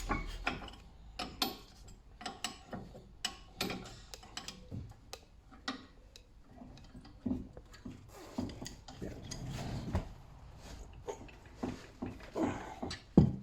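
Scattered metallic clicks and knocks of hand tools and parts as a brake caliper carrier is fitted back onto the hub and its bolts are wound in, with ratchet clicking.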